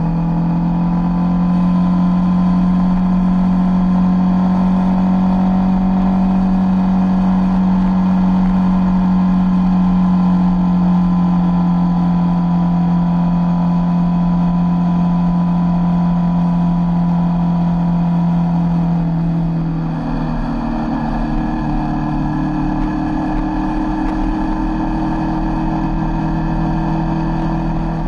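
Sport motorcycle engine running steadily at cruising speed on the road. About twenty seconds in, the engine note changes and the sound drops a little in loudness.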